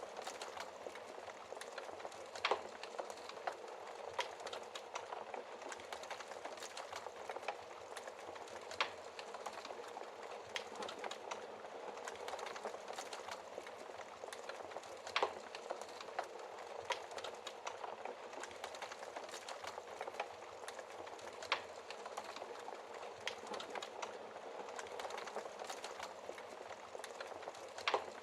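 Wood fire burning in a fireplace, crackling steadily with a dense run of small ticks, broken by a sharp louder pop every several seconds.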